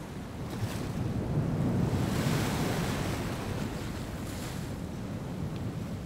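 Rushing, surf-like noise used as an intro sound effect. It swells to a peak about two seconds in and then slowly eases.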